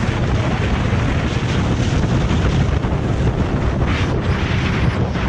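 Wind rushing over the microphone of a motorcycle ridden at speed, with the engine and road noise underneath. The rush swells briefly about four seconds in and again near the end.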